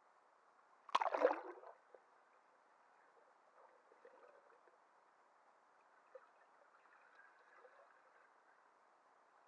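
A splash about a second in, then faint, muffled bubbling and gurgling heard with the camera under the water of a backyard pool.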